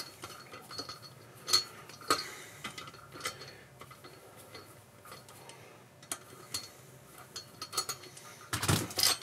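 Socket ratchet clicking in short, irregular runs as it loosens the cylinder-head bolts on an air compressor pump, with a louder metal clatter near the end.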